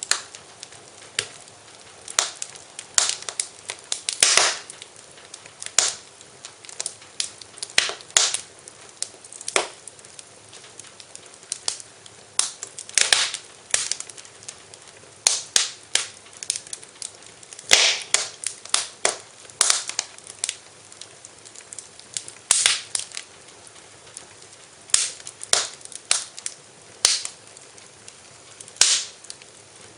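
Wood fire crackling in a fireplace: irregular sharp pops and snaps, some in quick clusters, over a faint steady hiss.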